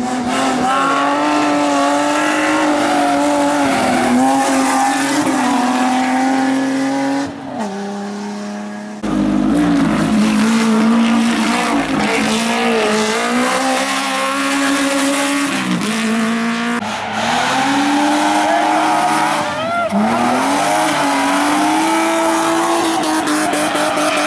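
Hillclimb race car engines running hard at high revs, their pitch climbing and dropping again and again through gear changes and braking. Several passes are edited together, with a sudden change about a third of the way in and again later.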